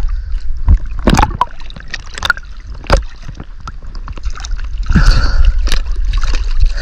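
Water splashing and sloshing against a kayak, with a few sharp knocks on the hull in the first half and busier splashing toward the end.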